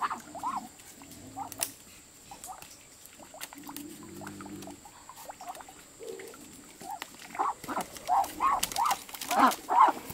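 Caged geese honking: a few short calls at first, then a quickening run of short rising-and-falling honks, about three a second, over the last few seconds. Light knocks from the bamboo cages being handled come in between.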